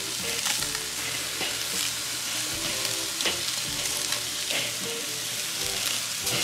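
Boneless, skinless chicken thighs sizzling steadily on a hot charcoal grill grate as they are turned with metal tongs. A few sharp clicks come from the tongs on the grate.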